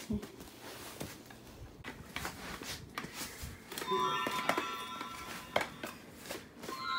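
Plastic baby toys clicking and knocking as they are handled, and about four seconds in an electronic baby toy starts playing a beeping tune, which comes back near the end.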